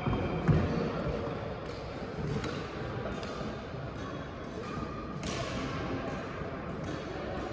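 Badminton play: sharp, irregular racket hits on a shuttlecock, the loudest about five seconds in, with a heavier thud of footfalls on the court floor about half a second in.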